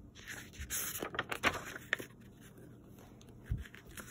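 Paper pages of a hardcover picture book turned by hand, rustling and scraping for about a second, with a soft low thump near the end.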